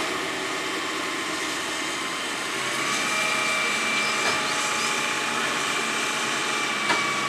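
Hitachi EX330 hydraulic excavator running steadily at work, with a steady high whine joining about two and a half seconds in as the level rises slightly. Two sharp clicks, one at the start and one near the end.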